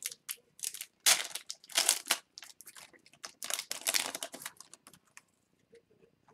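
Foil wrapper of an O-Pee-Chee Platinum hockey card pack being torn open and crinkled as the cards are pulled out, in several bursts that thin out after about five seconds.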